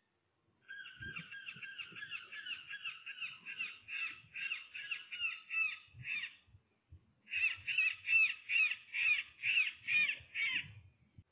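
Electronic predator call playing a rapid string of short, harsh, crow-like distress calls, about three a second, in two runs with a brief break about six and a half seconds in.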